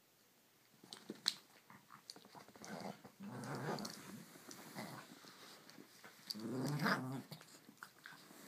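Small dogs, a Shih Tzu and a miniature Schnauzer, play-growling while they wrestle, in two longer bouts, with scattered clicks and scuffling around them.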